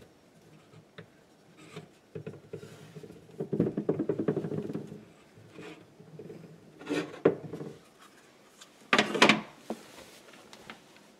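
Water bottles being shuffled and set down on a wooden cabinet shelf: rubbing and scraping in the middle, then a few knocks, the loudest near the end.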